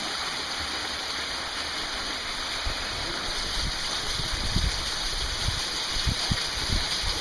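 Canyon stream's cascade rushing steadily, a constant even hiss of falling water. Scattered low thumps join in from about three seconds in.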